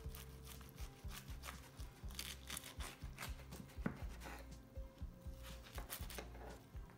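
Knife cutting down through a floured bread roll and burger on a wooden chopping board: a run of short crunchy scrapes and clicks.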